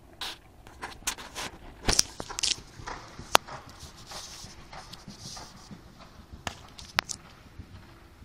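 A horse's hoofbeats on the sand footing of an indoor arena as it canters past: irregular muffled thumps and knocks, loudest around the second to fourth second.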